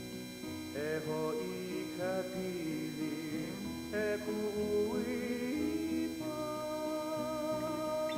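Music: acoustic guitar accompaniment with a singing voice that slides between notes, the voice coming in about a second in.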